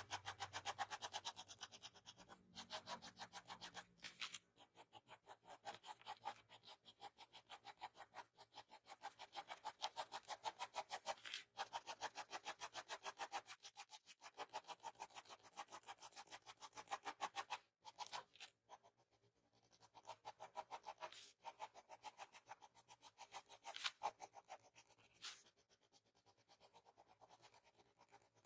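Mechanical pencil scratching on drawing paper in rapid short strokes, several a second, with brief pauses, as fine hair strands are drawn in graphite.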